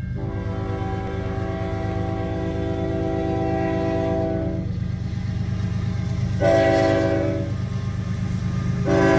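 Canadian National diesel locomotive's air horn sounding its multi-note chord for a grade crossing: a long blast, a short blast about six and a half seconds in, then another long blast starting near the end. This is the closing part of the standard long-long-short-long crossing warning. A steady low rumble runs underneath.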